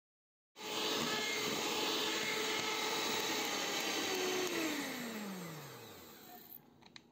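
Electric hand mixer running at speed, its twin beaters whipping cream in a stainless steel bowl, starting about half a second in. The cream is at the stiff stage, with the beater tracks holding. About four and a half seconds in, the motor winds down with a falling whine and the noise fades.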